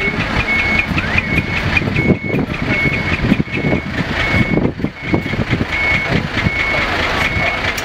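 Decorated heavy truck's diesel engine running at low speed through a manifold-split (mani-wari) exhaust, with an uneven low rumble. Over it a truck warning beeper sounds short high beeps about one and a half times a second.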